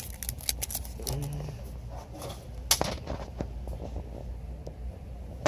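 Scattered clicks and light knocks of packaged sticker sheets being handled on metal pegboard hooks, the sharpest a little under three seconds in, over a steady low store hum.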